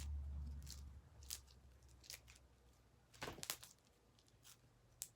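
Clear slime with styrofoam balls being squeezed and stretched by hand, giving a few faint sticky clicks and crackles, the loudest about three seconds in, over a low rumble in the first second.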